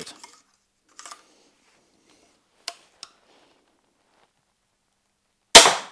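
EK Archery Cobra System R9 crossbow being readied with a few faint clicks, then fired once near the end: one sharp crack of the string release and the bolt striking the foam target, dying away quickly.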